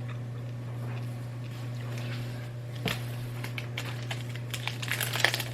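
A steady low hum, with light clicks and rustling of things being handled. There is one sharp click about three seconds in, and the handling noise grows busier near the end.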